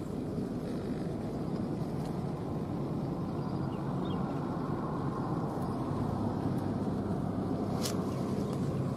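A steady low rumbling noise, like a distant motor or wind on the microphone, with one brief sharp click near the end.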